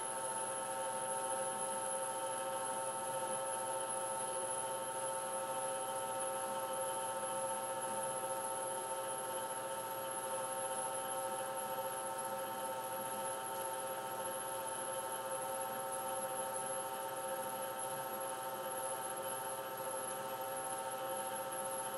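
BEcom BE-SFB-60 spiral dough mixer running at its single set speed, its belt-driven spiral arm and stainless steel bowl turning, with a steady motor whine made of several held tones.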